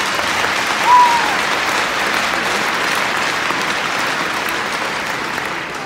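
Large indoor crowd applauding steadily, with one short whistle about a second in.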